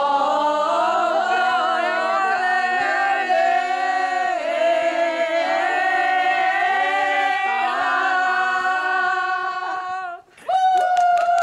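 A group of men and women singing together unaccompanied, several voices at once on long held notes. The singing breaks off briefly just after ten seconds, then comes back on a held note with claps.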